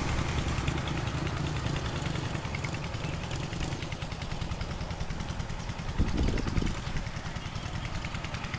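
A small engine idling with a fast, even putter. A short louder burst comes about six seconds in.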